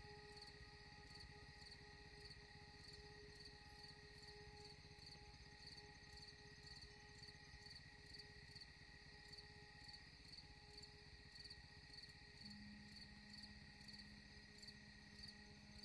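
Faint insect chirping, a rhythmic high pulse about two to three times a second over a steady high drone, with a faint low held tone coming in about twelve seconds in.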